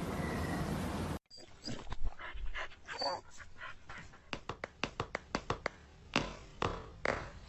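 A dog whining in short cries amid a run of quick, sharp clicks and taps, after a steady hiss that cuts off about a second in.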